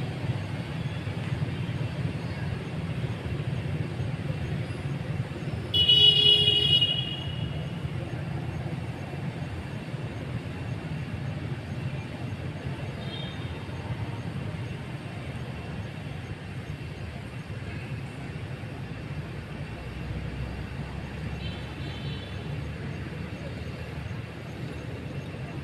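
Steady low rumble of distant road traffic. About six seconds in, a loud horn-like toot lasts about a second, and two much fainter similar toots follow later.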